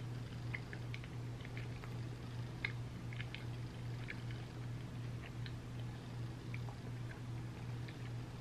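Close-miked mouth sounds of someone chewing a spoonful of ice cream sundae: many small, wet clicks and smacks at irregular intervals. A steady low hum runs underneath.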